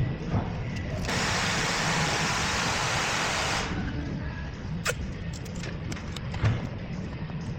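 A steady hiss, like gas or air escaping, starts about a second in and cuts off sharply two and a half seconds later. It is followed by a single sharp click.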